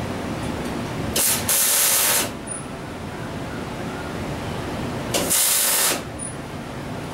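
Two bursts of pressurised hissing, each about a second long, starting and stopping abruptly, over a steady background noise.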